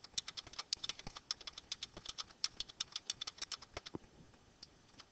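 Typing on a computer keyboard: a fast, even run of keystrokes, about ten a second, that stops about four seconds in.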